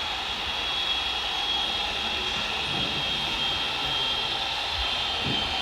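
Electric motor of an RC construction model running steadily, a high-pitched whine that drifts slightly lower in pitch, over a grainy mechanical hiss.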